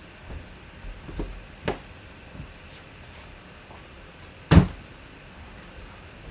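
Cardboard box being handled on a tabletop: a few light knocks and clicks in the first couple of seconds, then one loud thump about four and a half seconds in.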